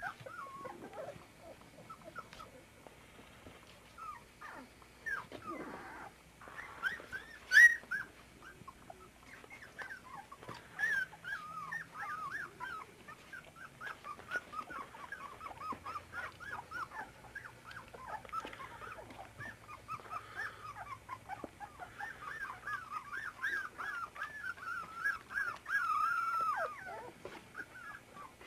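Litter of 24-day-old puppies whimpering and squealing: many short high-pitched squeaks, getting denser and nearly continuous in the second half, with one loud squeal about seven and a half seconds in.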